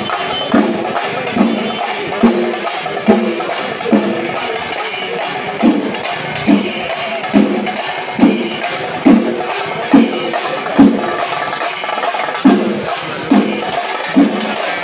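Shinkarimelam percussion ensemble of chenda drums and ilathalam cymbals playing a fast, dense roll. A heavy drum stroke lands a little more often than once a second, and drops out briefly about four seconds in.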